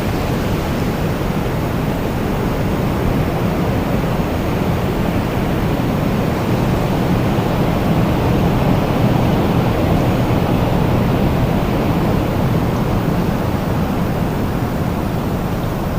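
Strong wind blowing in a steady rush that swells gently and eases off again.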